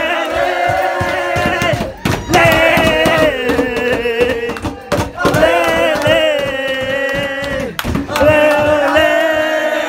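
A crowd of football fans, mostly men, singing a chant together in four long held phrases with short breaks between them, echoing in a train carriage.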